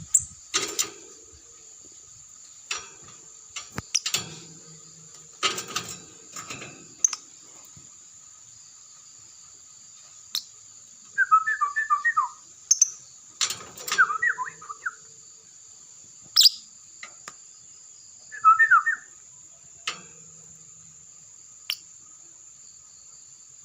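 Lovebird chirping in three short bursts of rapid notes in the second half, over a steady high-pitched ringing, with scattered clicks and knocks in the first half.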